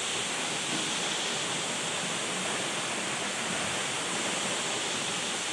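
Waterfall rushing: a steady, unbroken hiss of falling water.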